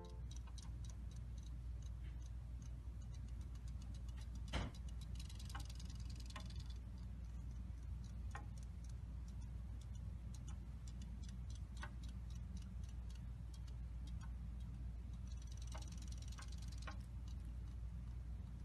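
A cat pawing at a small clear fish tank: scattered light taps and clicks of paw and claws on the tank, with a louder knock about four and a half seconds in and two short rustling, splashy patches as the paw dips in the water, over a steady low hum.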